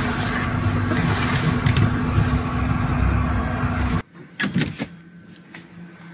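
A car running: a steady noise with a low hum. It stops abruptly about four seconds in, leaving a much quieter background with a few faint knocks.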